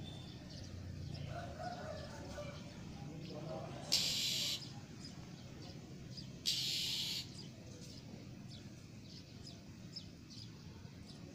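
Female oriental magpie-robin (kacer) calling: two harsh hissing rasps, each under a second, about two and a half seconds apart, between faint short chirps. This rasping is the female's call that draws male magpie-robins.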